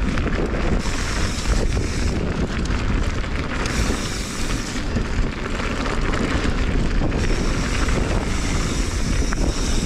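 Wind buffeting the microphone of a mountain bike rider's camera during a fast descent of a dirt singletrack, with steady tyre-on-dirt and bike noise underneath.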